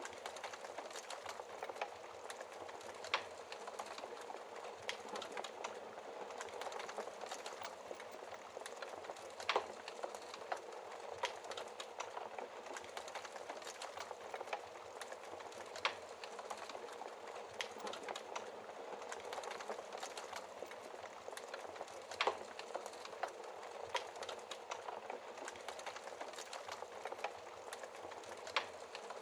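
Wood fire in a fireplace crackling: a steady hiss full of small snaps, with a few sharper, louder pops standing out every several seconds.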